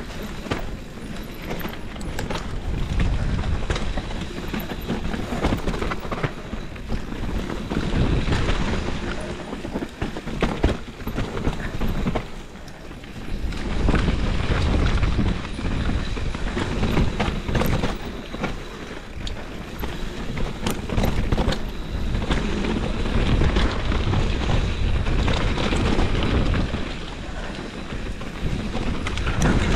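Mountain bike riding fast down rocky singletrack, filmed from the bike: tyres crunching over loose rocks, with the chain and frame rattling in constant sharp knocks and wind buffeting the microphone. The noise swells and drops as the bike speeds up and brakes into the turns.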